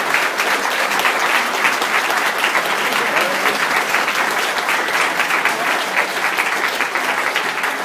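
Audience applauding steadily, a dense patter of many hands clapping, easing slightly toward the end.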